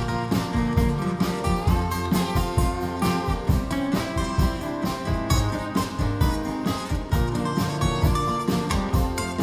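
Two acoustic guitars playing together in an instrumental passage, with quick picked notes and strummed chords.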